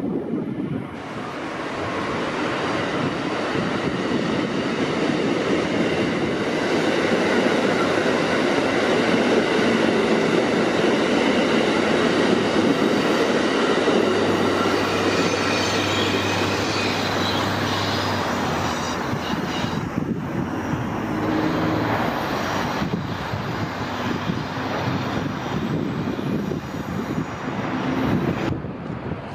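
CTA 7000 Series 'L' train running along the rails, with wheel-on-rail noise and several high steady squealing tones over it. It grows louder over the first several seconds, then holds steady.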